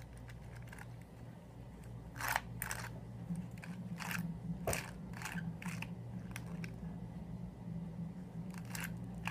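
Irregular clicks and clacks from a 3D-printed plastic e-NABLE Raptor prosthetic hand as its wrist is bent and the cord-driven fingers close and open, starting about two seconds in, over a steady low hum.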